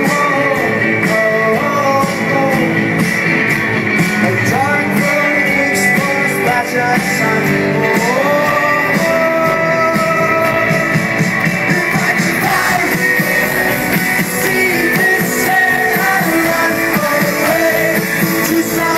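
Indie rock band playing live, with a lead vocalist singing over the band.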